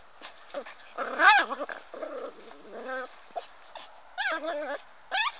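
Dogs playing, with yips and whines: short high calls that rise and fall, about a second in, again near three seconds and several more in the last second and a half.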